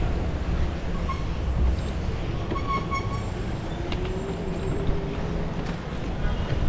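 City traffic: a steady low rumble of cars and other motor vehicles, with a short faint high tone about three seconds in.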